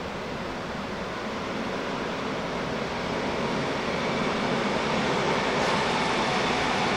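FS E 646 electric locomotive approaching slowly with its train, a steady running noise that grows louder as it nears.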